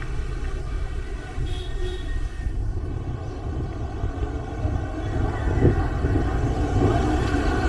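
Low, steady rumble of vehicle engines on a street, growing louder near the end as a van comes closer.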